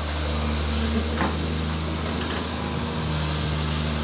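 Heavy diesel engine idling with a steady low drone.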